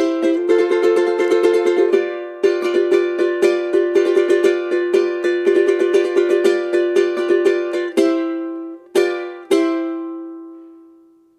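Timple, the small Canarian five-string guitar, strummed in quick rasgueo strokes: the accompaniment pattern of an isa in C major, with the chord changing every couple of seconds. Near the end come a few last separate strums, and the final chord rings out and fades away.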